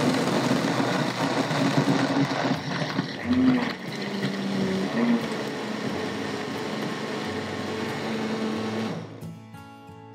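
Countertop blender running at full speed, crushing ice and strawberries in liquid into a smoothie; it stops about nine seconds in.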